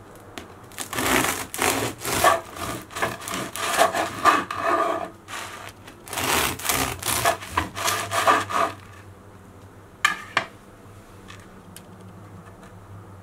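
Serrated bread knife sawing through a crisp-crusted baguette on a wooden cutting board: two bouts of quick back-and-forth rasping strokes, the crust crackling under the blade. A short crackle of crust near the end.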